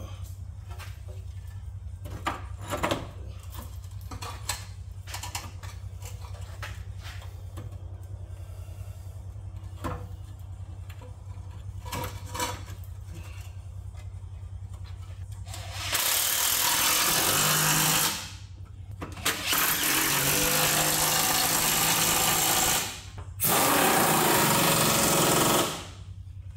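Light metal clicks and knocks of hand work under the truck over a steady low hum, then a pneumatic wrench running in three long bursts, about 2, 4 and 3 seconds long, as bolts are driven in.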